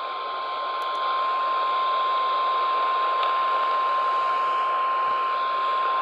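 NOAA Weather Radio's single-tone warning alarm, one steady high beep near 1 kHz over a hiss of radio static, signalling that a severe thunderstorm warning is about to be read.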